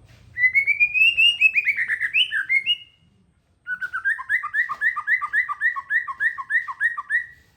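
A songbird singing two fast phrases of repeated notes with a short pause between them. The first phrase rises, then falls. The second is a steady run of quick alternating high and low notes, about four pairs a second.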